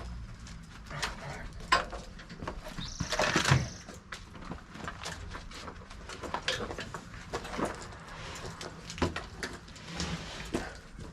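Irregular knocks and clunks, with a louder scraping squeak about three seconds in.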